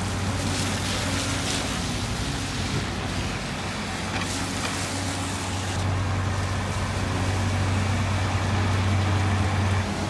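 City street traffic on a wet avenue: car engines running and passing vehicles, with a steady low engine hum that grows stronger about six seconds in.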